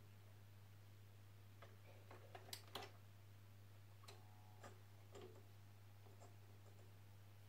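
Faint clicks of a Sanyo TP 388 turntable's tonearm and cueing mechanism being handled over the spinning record, the loudest a couple of seconds in and a few more later, over a steady low hum.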